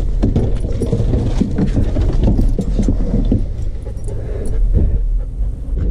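Chevy Express van running, heard from inside the cab as a steady low rumble with small rattles and clicks over it.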